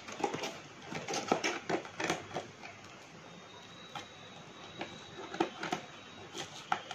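A parcel of online-ordered products being unpacked by hand: irregular rustling, crinkling and small clicks of packaging being handled and torn open.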